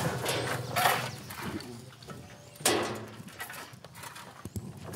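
Shovel blades scraping and digging into a heap of manure compost, with a few sharp strokes in the first second and another a little past halfway.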